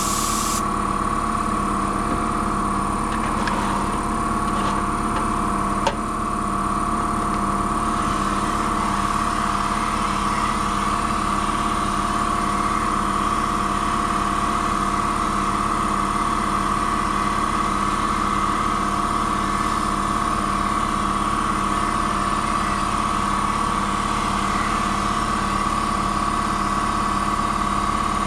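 An engine running steadily at a constant speed, with one sharp click about six seconds in.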